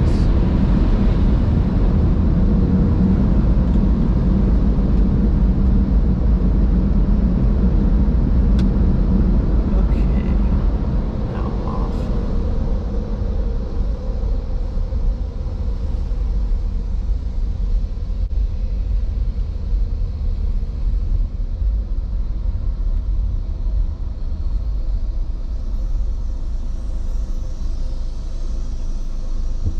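A 2004 Honda Accord moving slowly, heard from inside the cabin: a steady low rumble of engine and tyres that eases a little about halfway through.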